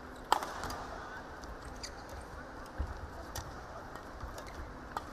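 Badminton rackets hitting a shuttlecock in a doubles rally. The loudest, sharpest crack comes about a third of a second in, then lighter hits follow roughly every second and a half. There are dull thuds of feet on the court over steady hall background noise.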